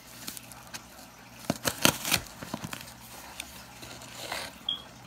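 Hands handling a cardboard shipping box whose packing tape has just been slit: scattered short clicks and scrapes, with a sharper knock about two seconds in.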